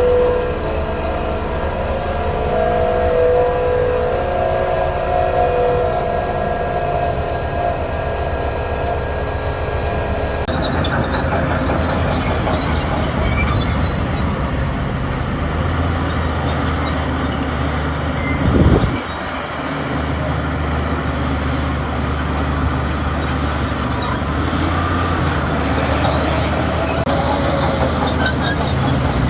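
Heavy diesel earthmoving machinery running continuously at a construction site. The sound shifts abruptly about ten seconds in from a steady droning engine tone to a rougher, noisier clatter, and a single loud knock comes near the middle.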